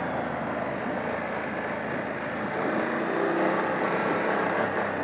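BMW F 850 GS Adventure's parallel-twin engine running as the bike is ridden over loose gravel, under a steady rushing noise. The engine note climbs briefly about three seconds in.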